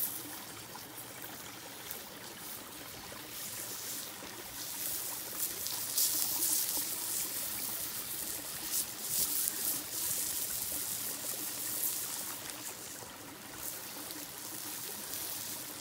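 Sika deer tongue and loin sizzling on a fire-heated stone, with scattered crackles from the wood fire beneath, over the steady rush of a stream. The sizzle grows louder through the middle and eases near the end.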